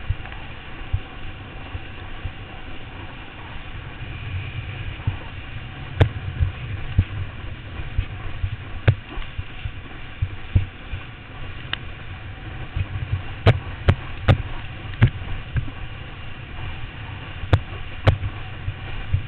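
Wind buffeting a helmet-mounted camera's microphone and water rushing under a kneeboard towed at speed behind a motorboat, with a steady low rumble. Sharp knocks come now and then, several close together in the second half, as the board slaps across the wake chop.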